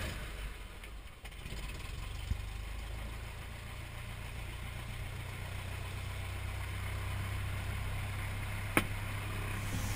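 Cessna 172's piston engine just after start, running unevenly for the first second or so and then settling into a steady idle. There is a sharp click near the end.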